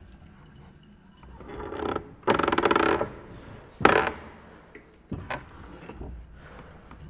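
A woodworking machine's cutter biting into a wooden board, scorching it hot enough to smoke. Noise builds, then comes loud dense cutting for under a second, and a second short, loud burst about four seconds in.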